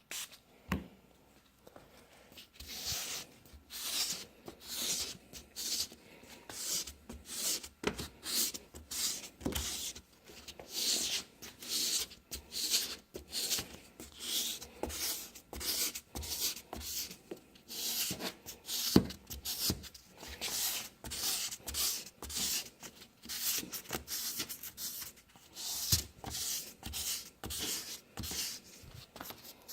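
Lubricated abrasive pad from a Rain-X headlight restoration kit rubbed back and forth across a cloudy, oxidised plastic headlight lens, a steady rasping scrub at about two strokes a second, with an occasional light knock.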